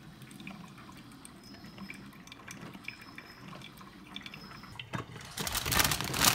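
Drip coffee maker brewing, water gurgling and dripping into the glass carafe, then a loud burst of rushing noise lasting about a second and a half near the end.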